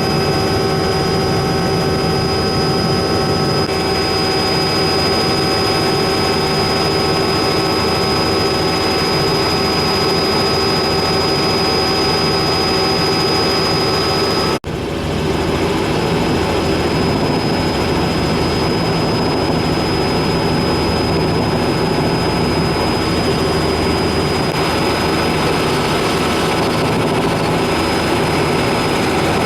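Helicopter in flight, heard from inside the cabin: a steady drone of engine and rotor with a high, steady whine over it. It breaks off for an instant about halfway through and carries straight on.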